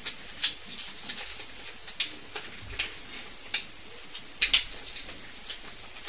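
About a dozen light, sharp clicks and ticks at irregular intervals over a faint steady hiss, the loudest a quick cluster about four and a half seconds in.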